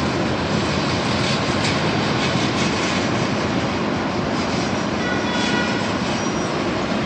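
Boeing 737's twin jet engines at takeoff power during the takeoff roll: a steady rushing noise from a distance, with a faint higher whine showing briefly about five seconds in.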